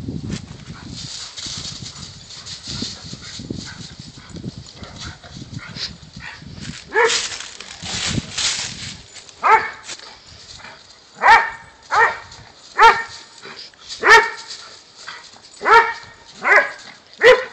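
Dogs running and scuffling through dry fallen leaves as they play chase. From about halfway through, a dog barks over and over in short single barks, roughly one a second.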